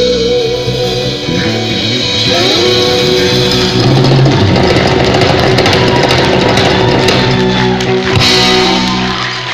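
Live band playing an instrumental passage led by electric guitar over drums, easing off near the end as the song closes.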